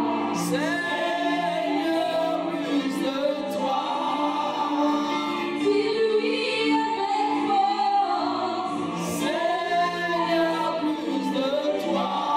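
A woman singing a slow Christian worship song into a handheld microphone, over steady held backing notes.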